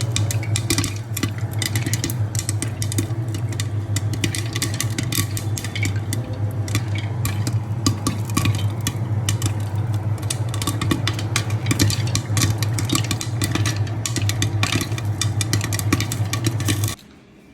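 Popcorn kernels popping: a dense, irregular run of sharp pops over a steady low electric hum, all cutting off abruptly near the end.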